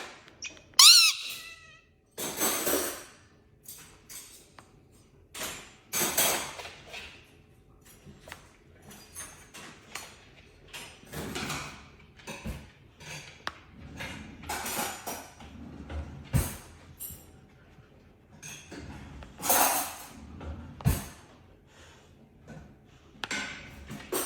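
Parrot calling: a falling whistle about a second in, then a string of short harsh squawks every second or two.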